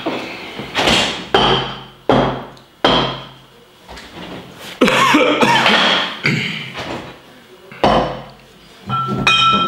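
Kitchen clatter: a run of sharp knocks and bangs as utensils and containers are handled, with a longer rattling stretch in the middle and a short ringing clink near the end.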